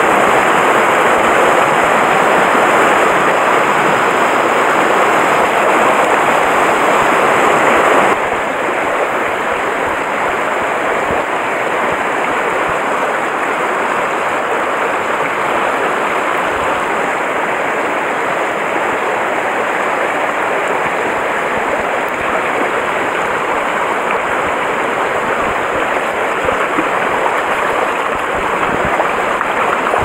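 Shallow mountain stream rushing and splashing over rocks, a steady water noise. It becomes a little quieter about eight seconds in.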